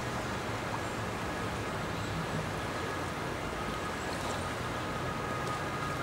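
River water flowing steadily, an even constant rush, with a faint steady high-pitched whine under it.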